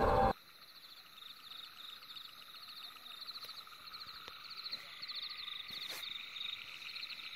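Music cuts off abruptly a moment in, leaving a faint night chorus of crickets chirping in quick, evenly repeated pulses.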